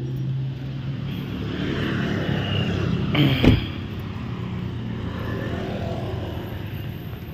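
Toyota Fortuner SUV engine idling with a steady low hum. About three and a half seconds in there is a single loud thump, over the noise of a motorbike passing on the road.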